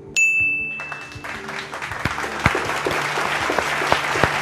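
A bright electronic game-show chime rings just after the start for about a second, marking the contestant's answer being revealed on the board. Studio audience applause then builds and carries on over a steady background music bed.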